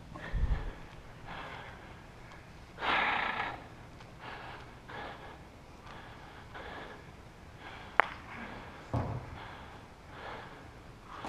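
Close breathing into a body-worn camera microphone, soft breaths every second or so with one heavier breath about three seconds in. A single sharp crack comes about eight seconds in, and dull thuds shortly after the start and about a second later.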